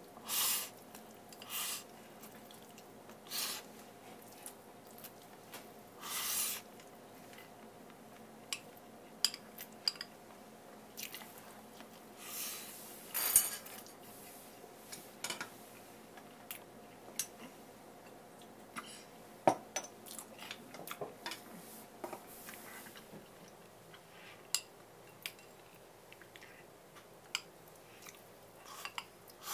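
A person eating a Japanese breakfast of negitoro rice bowl and miso soup: scattered clicks of chopsticks and tableware against bowls, chewing, and several short, noisy bursts, over a faint steady hum.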